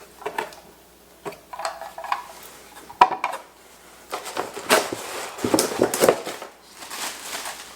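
Hard plastic vacuum attachments being handled and unpacked, clicking and knocking against each other and the box. There are scattered knocks, a sharp click about three seconds in, and a busier run of knocks in the second half.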